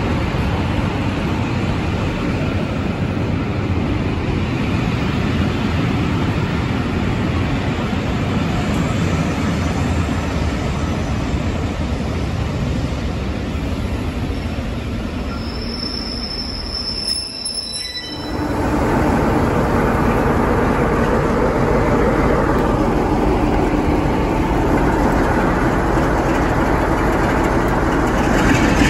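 Passenger coaches rolling slowly past behind a diesel locomotive, wheels and bogies rumbling on the track, with a brief high wheel squeal about two-thirds of the way through. Then a Class 47 diesel locomotive's engine running close by with a steady low drone.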